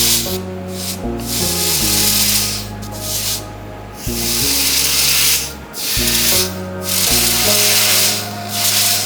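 Red-hot iron balls hissing and sizzling as they melt into ice, the hiss coming in surges a second or two long with brief breaks. Background music with low held notes plays underneath.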